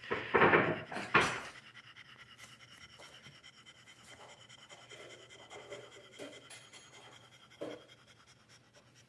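French bulldog mother panting, two loud breaths in the first second and a half, then much softer breathing with small faint sounds, one a little louder near the end. She is nursing a day after a C-section and still in pain.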